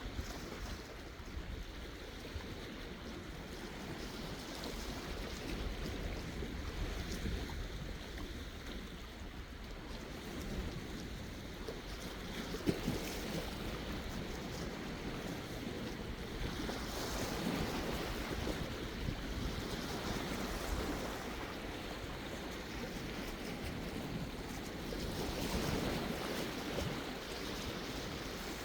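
Sea waves washing ashore, surging louder several times and falling back, with a low wind rumble on the microphone. A brief click about halfway through.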